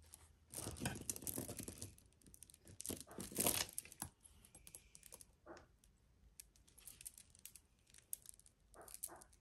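Jewelry being handled: faint scattered clicks and clinks of small metal pieces and chains, with rustling of packaging, busiest in the first few seconds.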